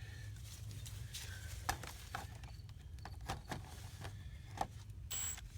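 A few scattered light knocks and clicks, as tools and parts are handled, over a faint steady low hum.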